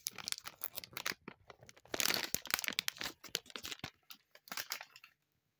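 Plastic cat-treat packet crinkling and rustling as it is handled, in quick crackly bursts that are loudest about two seconds in.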